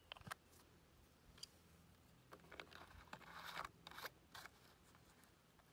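Faint handling sounds from bleach-treated water bottles being dosed and capped: a few small plastic clicks, then a brief scraping rustle about three and a half seconds in.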